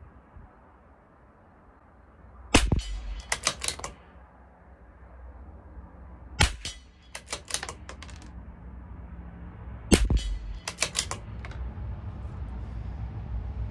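Three shots from a CZ 457 LRP bolt-action .22 LR rimfire rifle, about four seconds apart. Each shot is followed at once by a quick run of metallic clicks as the bolt is worked to eject the case and chamber the next round.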